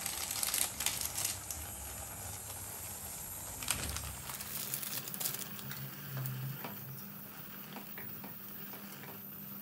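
Cooking sounds: a utensil stirring food, with irregular light clicks and a soft hiss.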